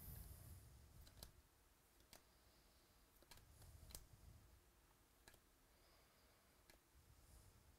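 Faint handling noise of trading cards being flipped through and set down: soft, separate clicks about once a second, with light low rubbing.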